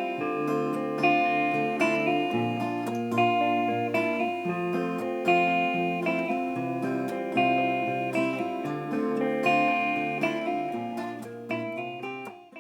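Acoustic guitar music, plucked notes and chords, fading out near the end.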